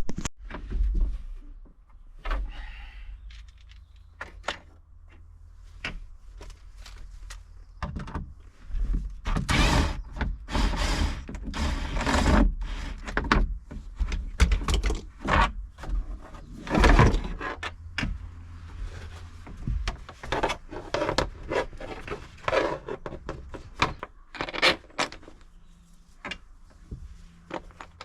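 Irregular knocks, thunks and scrapes of a sun visor and plastic roof console being handled and pushed into place against a vehicle's roof lining, busiest around the middle.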